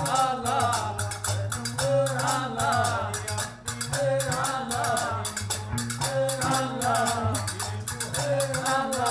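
Moroccan music: iron qraqeb castanets clacking a fast, even rhythm over low plucked notes from a long-necked lute, with voices singing a melody on top.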